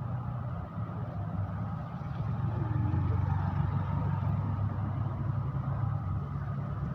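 Vehicle engine idling in a low, steady drone, which swells from about two seconds in as a motorcycle passes close by.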